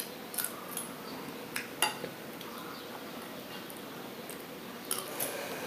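Metal spoon clinking against a ceramic bowl while eating: about six light clinks, four in the first two seconds and two more near the end.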